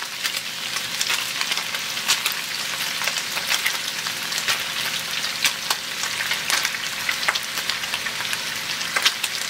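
Thin-sliced beef frying in hot oil in a skillet: a steady sizzle with frequent scattered pops and crackles.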